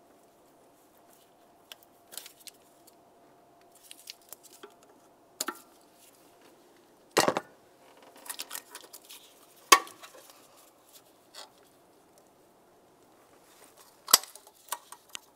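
Plastic fuel injector electrical connectors being unclipped by a gloved hand: scattered small clicks and rattles, with sharp snaps about seven, ten and fourteen seconds in.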